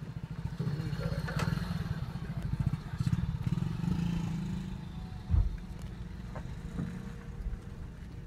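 Hyundai Creta diesel SUV driving slowly over a rough dirt track, heard from inside the cabin: a steady low engine and tyre rumble, with one heavy thump a little past halfway through, the loudest sound.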